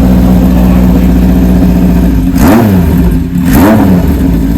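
A 1978 Kawasaki KZ1000's air-cooled inline-four engine, with a Kerker header, idling steadily, then blipped twice in quick succession, the revs rising and falling each time about two and three and a half seconds in, before settling back to idle.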